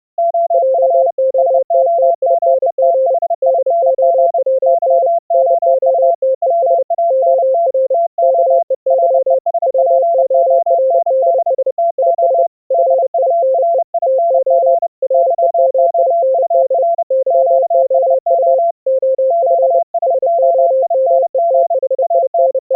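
Two fast Morse code (CW) signals at slightly different pitches, one lower and one higher, keyed on and off at the same time and often overlapping. Both directions of a full-duplex Morse exchange are heard over an audio-over-IP link.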